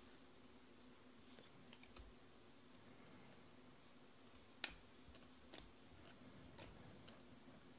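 Faint, soft clicks of Panini Prizm trading cards being handled and slid off a stack by hand, a few separate clicks about a second apart, the clearest a little past the middle, over a faint low hum.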